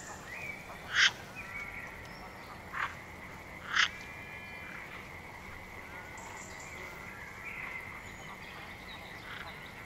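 Three short animal calls, the loudest about a second in and just before four seconds, over a steady high-pitched tone, with fainter chirps in between.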